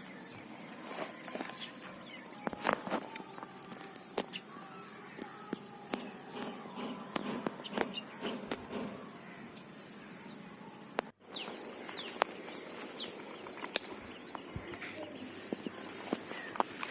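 Quiet outdoor ambience of insects droning steadily, with scattered faint clicks and knocks of handling close by.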